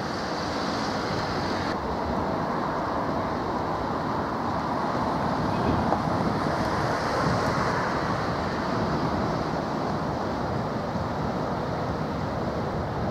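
Steady rushing outdoor noise of wind and water, with a low rumble underneath and no distinct engine note.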